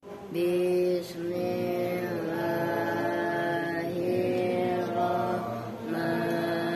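A group of boys chanting together in Arabic, in long drawn-out melodic lines with each note held for a second or more.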